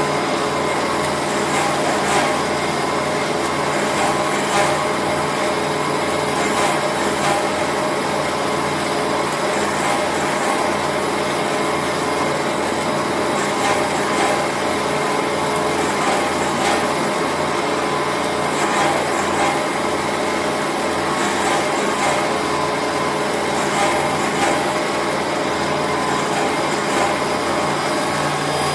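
Bench drill press running with a steady motor hum while its bit drills into small wooden blocks held in a jig, with scattered sharp clicks and knocks.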